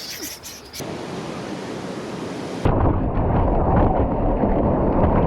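Ocean surf rushing and rumbling through a GoPro's microphone. It changes abruptly about a second in, and again near three seconds in, where it turns into a loud, deep, muffled rush.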